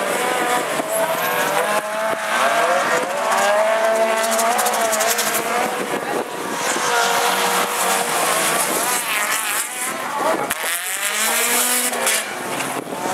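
Several small hatchback autocross race cars racing on a dirt track, their engines revving up and down as they pass and overlap one another.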